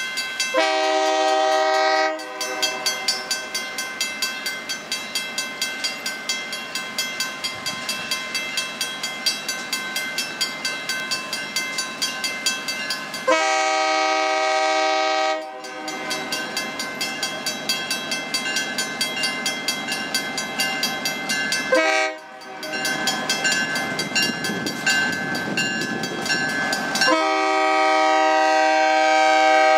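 A railroad crossing bell rings steadily as a diesel locomotive sounds its chime horn for the crossing in the standard pattern: long, long, short, then a final long blast held as the locomotive reaches the crossing.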